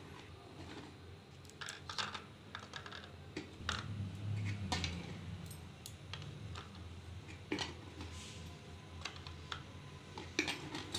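Crisp fried papri (flat fried dough crackers) being set out on a plate: light, irregular clicks and taps as the pieces touch the plate and each other.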